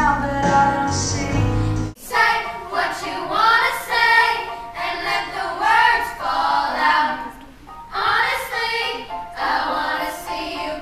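A group of girls singing together with a piano accompaniment. For the first two seconds there is recorded music with a heavy bass, which cuts off abruptly when the singing begins.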